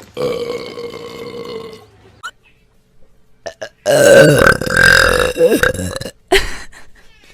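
A young woman belching deep and loud: one long belch, then about four seconds in a second, louder and longer one, followed by a short burp.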